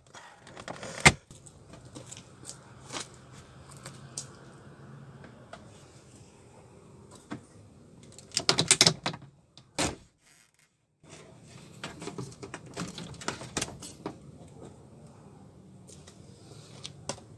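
Sharp clicks, knocks and metallic rattles of a Mitsubishi Adventure's door handle assembly being worked loose and taken out of the door, with a busier burst of rattling about halfway through.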